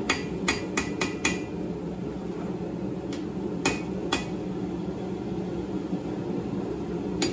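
Blacksmith's hand hammer striking a red-hot railway-spike blade on the anvil, straightening it: a quick run of five ringing blows in the first second and a half, three more around three to four seconds in, and one near the end, over a steady low rumble.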